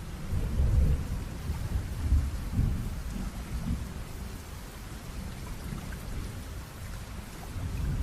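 Steady rain with low rolls of thunder rumbling under it, the strongest rumbles about a second in and again around two seconds in.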